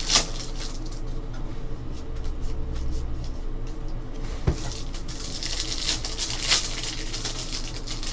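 Trading cards and their pack being handled: crinkling, rustling and sliding, with a sharp tick about four and a half seconds in.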